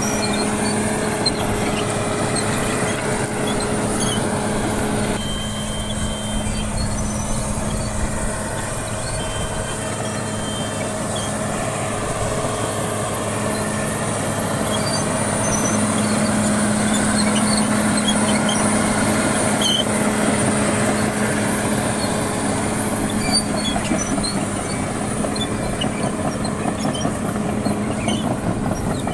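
Caterpillar D6R bulldozer's diesel engine running steadily under light load while dozing, with small scattered ticks over the engine noise.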